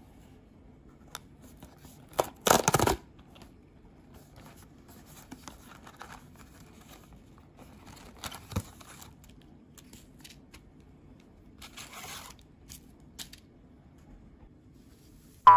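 Cardboard carton of instant-coffee stick packets being torn open, with one loud tearing rip a couple of seconds in, followed by quieter rustling and light taps as the stick packets are pulled out and laid down. A short pitched sound effect starts right at the end.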